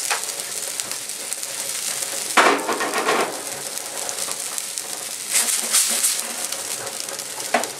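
Seafood fideuà broth sizzling and bubbling in a steel paella pan over a gas flame, a steady hiss. It swells into louder bursts of noise about two and a half seconds in and again about three seconds later.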